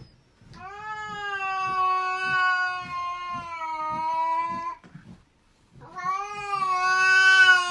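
A domestic cat yowling in two long, drawn-out calls, each held at a steady pitch that sags slightly. The first lasts about four seconds; the second starts about a second after it ends and is louder.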